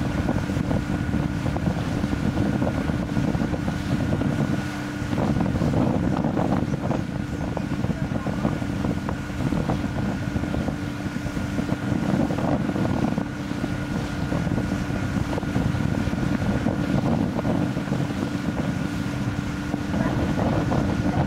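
Outboard motor on a small fishing boat running steadily at speed, a constant drone, with wind buffeting the microphone.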